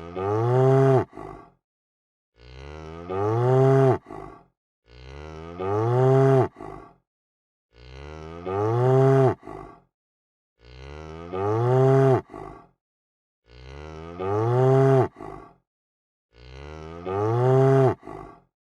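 A cow mooing, the same recorded moo looped about seven times with silence between. Each moo starts quieter, swells into a loud call and drops in pitch at its end, followed by a short softer tail.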